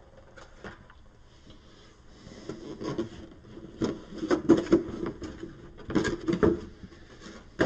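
A thin clear plastic cover sheet being handled and peeled off a plastic miniatures tray: irregular crinkling, rustling and light clicks of plastic, starting about two seconds in.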